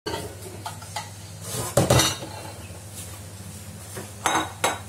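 Dishes and a spoon being handled on a granite countertop: a cluster of clinks and knocks about two seconds in as a plate is set down, and two sharp clinks near the end.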